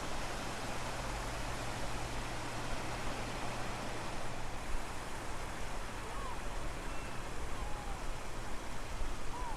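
Strong wind blowing across the microphone over the wash of the sea at low tide, a steady rushing noise. A low steady hum runs underneath and stops about halfway, and a few short, faint high calls come in the second half.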